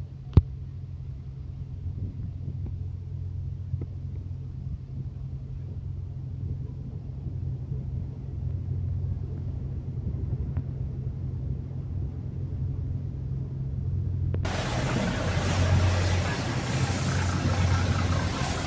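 Steady low drone of a river passenger launch's engine. A single sharp click comes just after the start. About three-quarters of the way through, a loud, broad rushing noise suddenly joins the drone and keeps on.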